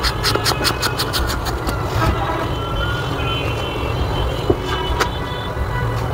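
A steady low mechanical rumble with a few faint high whining tones. Over it comes a quick run of sharp clicks in the first two seconds, and a single click later on.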